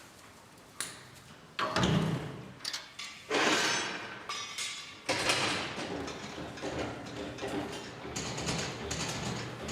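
Sheep-handling crate and gates at work: a series of metal thumps and clanks, several sharp knocks spaced a second or so apart with rattling in between.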